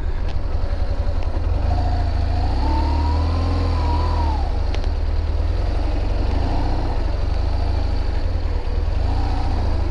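BMW R1200 GS boxer-twin engine running under way over sand and mud, with a steady low rumble. The engine note rises and then falls once, from about two to four seconds in, as the throttle is opened and eased.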